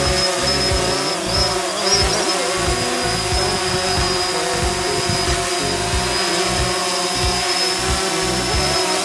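DJI Phantom 3 quadcopter hovering close by: a steady, high buzz from its four propellers and motors, its pitch wavering now and then as the motors adjust.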